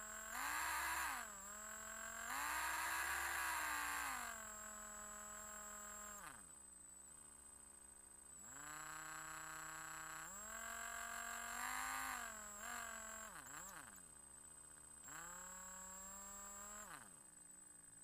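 Electric drill motor whirring, its pitch rising and falling as it speeds up and slows down, with a faint steady high whine on top. It winds down to a stop about six seconds in, starts again about two seconds later, and winds down again near the end.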